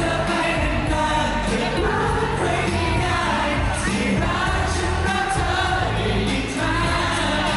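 Several male voices singing a pop song together into handheld microphones over an amplified backing track with a steady bass line.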